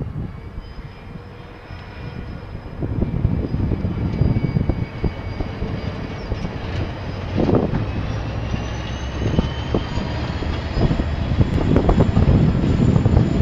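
Passing KiwiRail train: a loud low rumble of wheels and diesel locomotive with uneven knocks, and a thin high whine that rises slowly in pitch in the second half.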